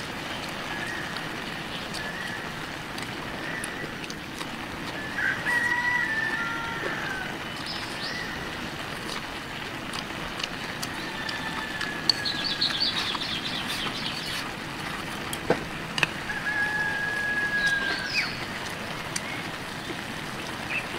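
A rooster crowing twice, once about five seconds in and again near the end, over a steady outdoor hiss, with a few higher bird chirps in between.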